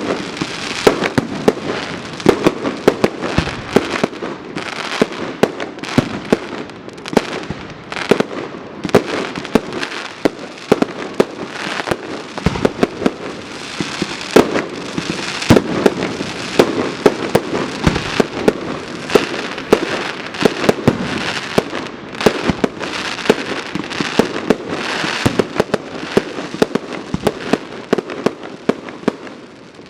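Fireworks salute: a rapid, unbroken run of shell bursts, several bangs a second, over continuous crackling noise.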